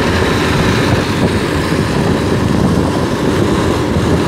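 Motorcycle being ridden at steady speed: the engine runs evenly under a constant rush of wind and road noise.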